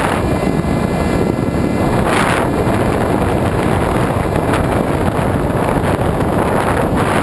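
Wind rushing over the onboard GoPro of a 1.8 m EPP foam FPV glider in flight: loud, steady wind noise on the microphone, swelling briefly about two seconds in.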